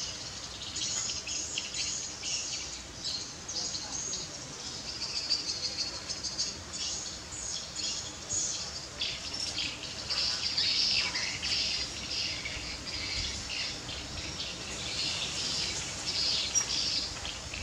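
Outdoor chorus of high-pitched, rapid chirping that goes on without a break, densest in the second half.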